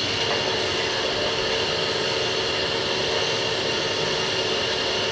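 Crane truck's hydraulic machinery running steadily: a constant mechanical hum with a high, even whine over it.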